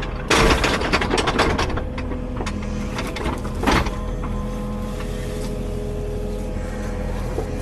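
Kubota mini excavator engine running steadily, with a dense burst of cracking and snapping about half a second in and another short crack near the middle, as branches and brush of the fallen hickory are pushed and broken.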